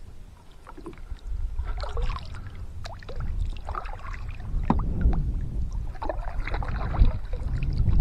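Kayak paddle strokes splashing in shallow creek water, irregular and starting about a second in, over a steady low rumble.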